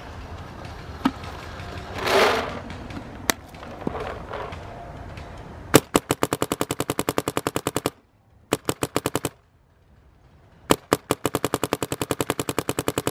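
Dye M2 MOS Air electronic paintball marker firing rapid strings of shots, more than ten a second, with a brief pause and a couple of single shots between strings. In the first half there are only a few isolated clicks over low background rumble before the shooting starts.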